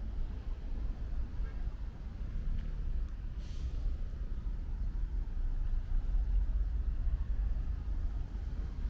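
Distant road traffic rumbling steadily, with a brief hiss about three and a half seconds in.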